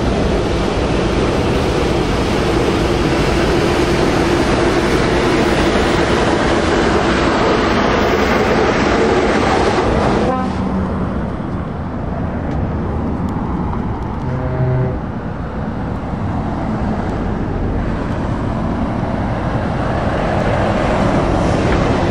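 Road traffic passing close by: a heavy truck's diesel engine running loud as it approaches and goes past. About ten seconds in the sound changes suddenly to a quieter, steady stream of cars and lorries going by.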